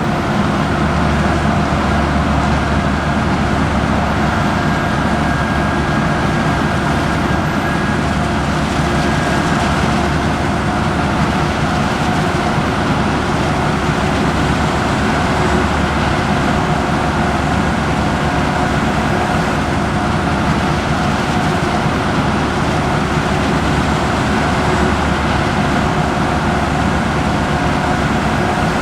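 Heavy farm machinery running steadily under load during the maize harvest, a constant engine drone with a thin, steady whine over it.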